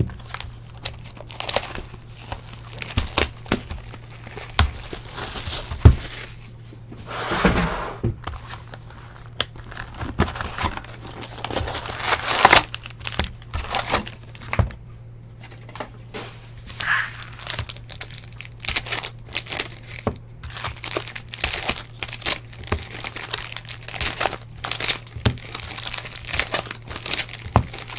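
Wrapping and cardboard of a 2017 Topps Chrome Jumbo baseball card box crinkling and tearing as the box is opened and the packs inside are handled. An irregular run of crinkles, rips and small taps.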